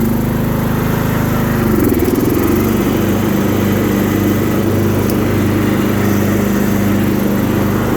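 Sears Craftsman riding mower's 13.5 hp single-cylinder Briggs & Stratton engine running steadily with the mower deck engaged. Its pitch dips briefly about two seconds in, then settles and holds steady.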